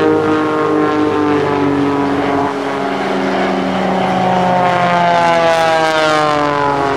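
Christen Eagle aerobatic biplane's engine and propeller running hard overhead. The engine note slides down in pitch as the plane passes, then comes back higher a few seconds later and slides down again on a second pass.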